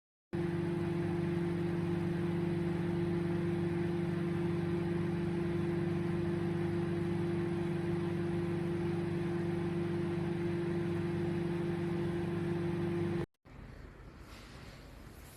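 SHARP R-22A0 20-litre microwave oven running: a steady, even hum that starts abruptly and cuts off abruptly near the end, leaving much quieter background noise.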